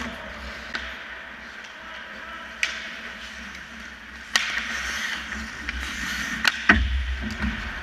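Ice hockey play: skates scraping and carving on the ice, broken by several sharp clacks of sticks and puck. Near the end come two clacks close together with a heavier low thud, the loudest moment.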